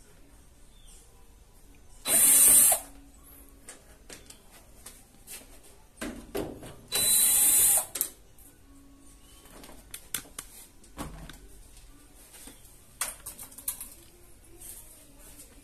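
Cordless power drill or screwdriver running in two short bursts, about 2 s and 7 s in, backing out the top-panel screws of a washing machine. Small clicks and handling of tools and screws in between.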